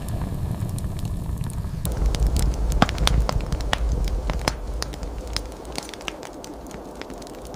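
Open wood fire crackling: a steady low rumble of flame, with sharp, irregular pops and snaps that come thick and fast from about two seconds in.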